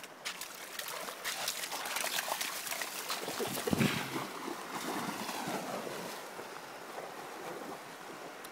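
A dog splashing through shallow river water, with a loud splash just before four seconds in as it plunges into deeper water, then softer splashing as it swims away.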